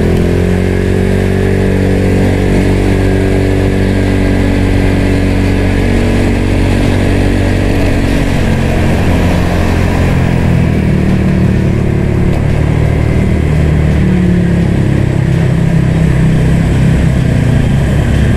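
Scooter engine running through an aftermarket DSM exhaust, a copy of a CMS pipe, while cruising; the exhaust note holds steady, then eases off and picks up again about ten seconds in.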